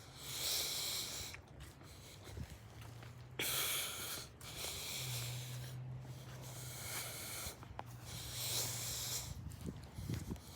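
A person breathing heavily and close to a phone's microphone: a series of hissy breaths, one every two to three seconds, over a faint steady low hum.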